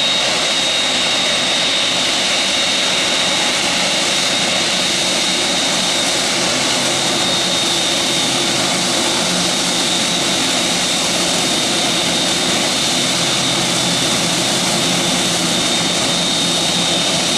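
Jet engines of a four-engined Boeing 747 taxiing past: a steady loud rush with a thin high-pitched whine held over it.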